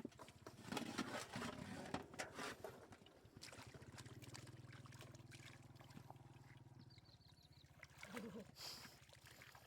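Water splashing and trickling for a couple of seconds, then a low steady hum for a few seconds.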